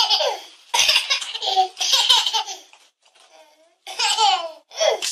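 Toddler laughing in repeated bursts of high-pitched giggles, the pitch falling within each burst, with a short pause about two-thirds of the way through.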